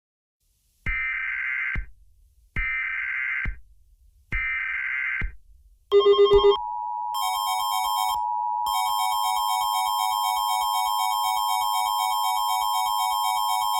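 Emergency Alert System SAME header: three one-second bursts of data screech, then a short loud buzz about six seconds in and the steady two-tone attention signal. A pulsing set of high tones is layered over the attention tone.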